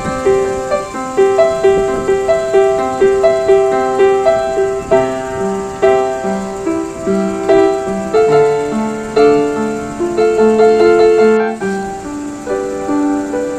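Background piano music: a steady flow of melodic notes, with a brief break about eleven and a half seconds in.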